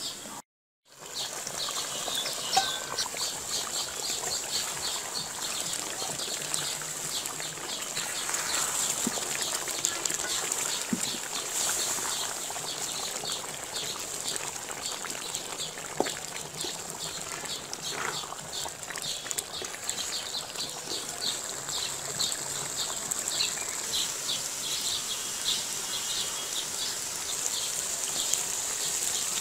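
Thick mutton curry bubbling and sizzling in an open metal pot, under a high chirp that repeats a couple of times a second and a steady high hiss from birds or insects. The sound drops out briefly about half a second in.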